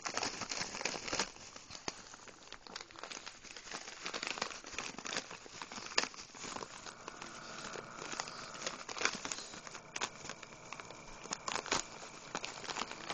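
Thin plastic bag crinkling and rustling in quick irregular crackles as a pug noses into it and pulls at it to get at the treats inside.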